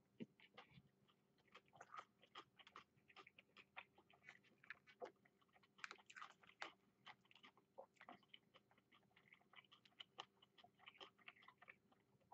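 A person chewing takeout food close to the microphone, quietly: irregular small wet clicks and crackles of the mouth and bites, with no speech.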